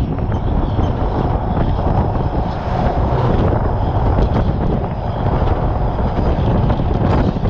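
Steady wind rush on the microphone over the rumble of an empty detachable lowboy trailer rolling down the road behind a semi truck.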